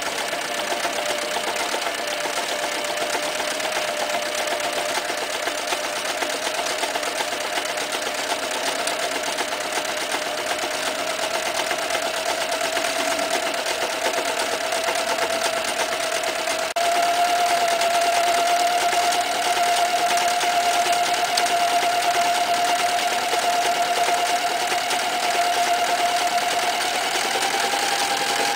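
Toyota 9060 electric sewing machine stitching through a thick imitation-leather plastic belt: a steady motor whine with the needle mechanism running. The pitch creeps slowly upward, then steps up to a faster, louder speed a little past halfway as the foot controller is pressed further.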